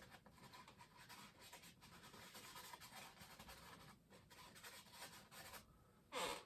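Faint, soft scratching of a bristle paintbrush stroking wet oil paint on canvas, stopping about five and a half seconds in.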